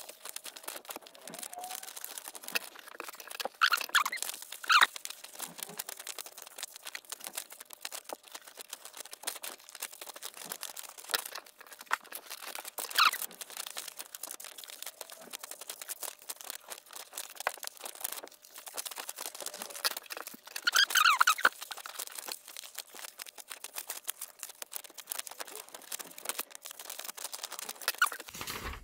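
Scissors cutting printed paper along a curved line: a steady run of small snips and paper rustling, with louder crinkles of the sheet being handled about 4, 13 and 21 seconds in.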